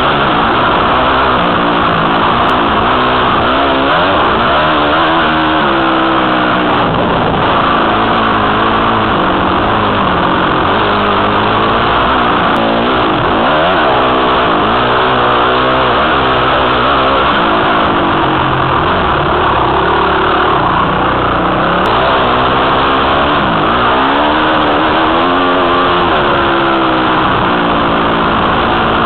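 Dirt bike engine being ridden hard along a trail, revving up and dropping back over and over as the rider works the throttle and gears, heard from the rider's helmet camera.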